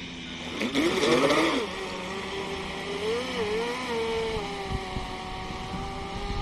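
Electric whine of an RC mono-hull boat's TP4070 brushless motor running on a 6-cell LiPo. Its pitch rises and falls sharply about a second in, wavers briefly, then holds steady as the boat runs.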